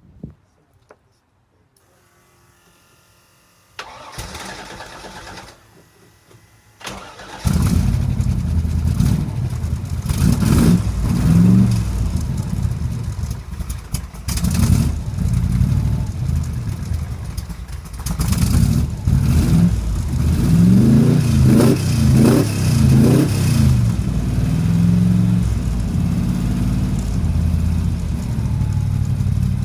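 A freshly built Chevy V8 in a Dax Cobra kit car, on its first start-up: it fires about seven seconds in and runs loud and rough. The revs are blipped up and down several times in the middle stretch.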